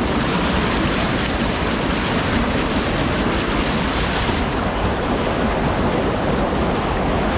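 Mountain creek rushing over rocks through a narrow canyon: a loud, steady wash of water, with some low rumble of wind on the microphone.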